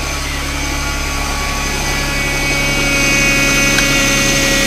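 Nissan V6 engine idling just after a cold start in minus-four weather. The steady running does not sound good, which the owner puts down to the cold, and it gets a little louder about halfway through.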